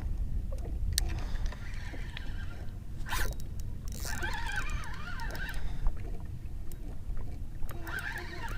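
Wind rumbling on the microphone and water against a fishing boat, with scattered clicks and a wavering high squeal near the middle and again near the end.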